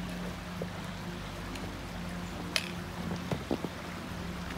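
Small brook flowing with a steady rush. A few light clicks and crunches from a hiker's footsteps and trekking poles in fresh snow come in the second half.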